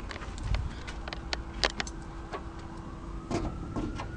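Scattered clicks and light knocks of hands working at a pickup's hood and engine bay, with a faint steady hum starting about a second in.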